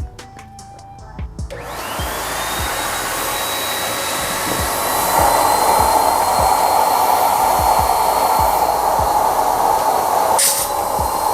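Electric balloon pump switching on about a second and a half in, its motor whine rising as it spins up, then running steadily with a loud rush of air as it blows through its hose to inflate a reusable balloon. It gets louder about five seconds in, and the sound shifts briefly near the end. Background music with a steady beat plays underneath.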